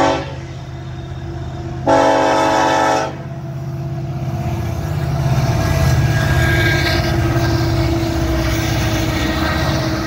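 BNSF SD70ACe diesel locomotives leading a coal train: a brief horn toot, then a horn blast of about a second sounded for the grade crossing, followed by the rising rumble of the diesel engines as the locomotives pass close by.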